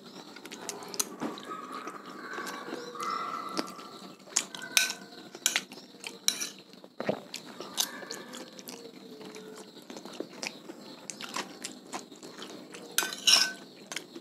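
Metal spoon clinking and scraping on a ceramic plate while batagor (fried fish dumplings and tofu) is chewed close to the microphone. Sharp clicks come irregularly throughout, the loudest about five seconds in and again near the end.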